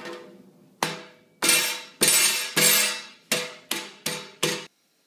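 A hand slamming down repeatedly on a table strewn with food and cutlery: about nine heavy strikes, each with a short ringing decay. The strikes come faster toward the end, then cut off abruptly.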